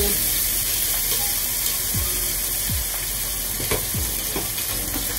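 Beef steaks sizzling in a hot nonstick skillet as they are turned with tongs, with a few light knocks in the second half.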